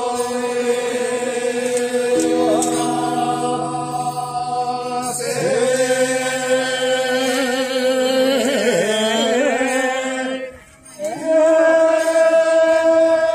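Background music in a slow Japanese style, made of long held, choir-like notes. It dips briefly about ten and a half seconds in, then goes on with a new held note.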